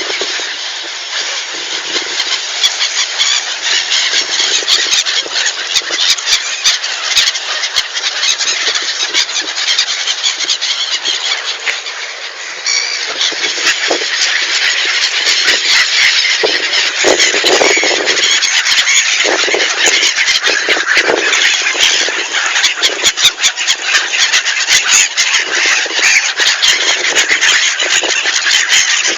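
A large flock of birds chirping and chattering all together in a dense, loud, unbroken din of overlapping shrill calls.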